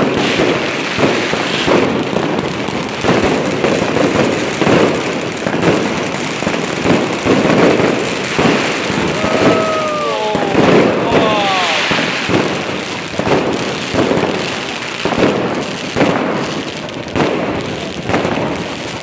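Fireworks display: a continuous run of shells and firecrackers bursting overhead, rapid loud bangs over steady crackling.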